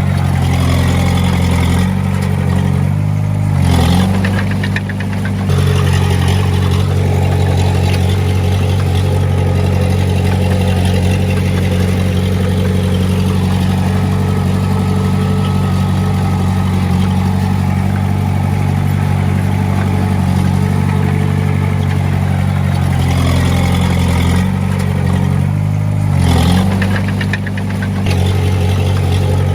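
Diesel engine of heavy earthmoving equipment running steadily, its pitch shifting briefly about four seconds in and again near the end as the engine load changes.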